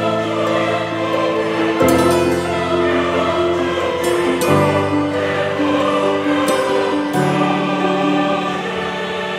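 Background music: a choir-like vocal pad holding long, sustained chords that change every two to three seconds.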